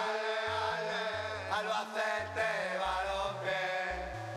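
Music: male voices singing together in chorus over a backing track with a bass line that steps between held notes.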